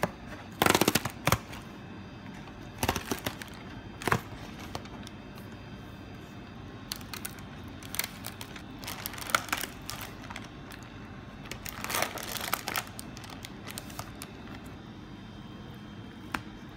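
Cardboard food box being opened and thin plastic film crinkling as it is peeled off the food tray, in several short bursts with pauses between.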